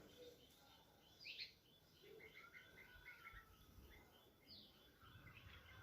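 Faint birdsong: a few quick falling chirps and a short run of rapid twittering notes over quiet background hiss.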